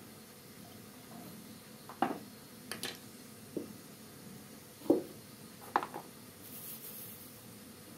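Kitchen utensils and containers being handled on a table: about half a dozen light knocks and clinks spread over a few seconds, over quiet room tone.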